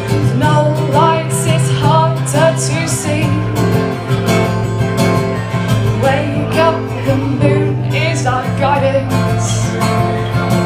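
A woman singing a slow song while playing an acoustic guitar, performed live through a small PA.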